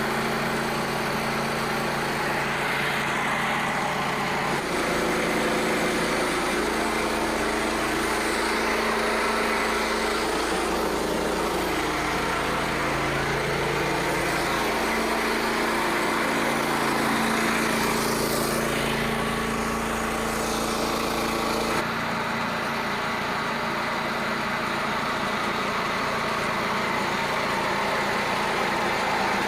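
The Frontier OS27 sawmill's small gasoline engine running steadily, warming up. Its tone shifts abruptly twice, about five seconds in and again a little after twenty seconds.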